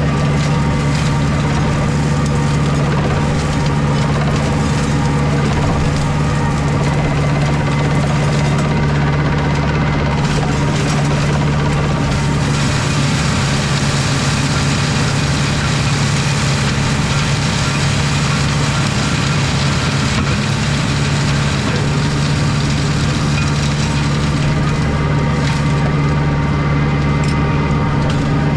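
Tractor engine running steadily under heavy load while its flail mulcher shreds thick, years-old blackberry bramble, the engine hum and the dense shredding noise together.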